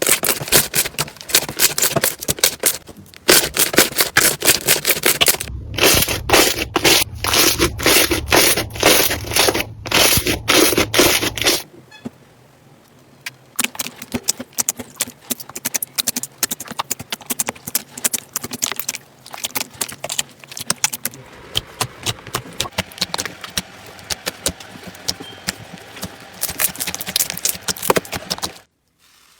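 Slime being squeezed and pressed by hand, giving dense crackling and popping clicks. About twelve seconds in, a new clip starts with quieter, sparser crackling, which cuts off just before the end.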